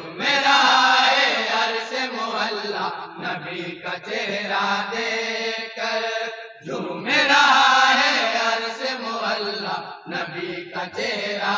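A group of men reciting an Urdu naat in unaccompanied, chant-like singing, in long phrases with drawn-out, wavering notes and short breaks between them.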